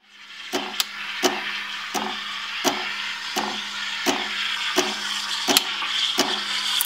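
Espresso machine steam wand hissing steadily as it froths milk in a stainless steel pitcher, over a low steady hum, with a sharp tick or pop about every two-thirds of a second.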